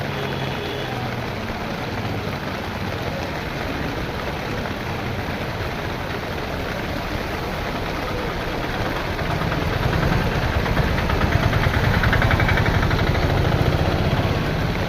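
Heavy rain pouring steadily, with an engine running that grows louder about nine seconds in.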